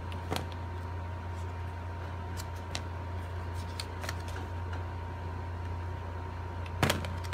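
Light clicks and taps from handling stiff cardstock petals and a small hot glue gun, the loudest near the end, over a steady low hum.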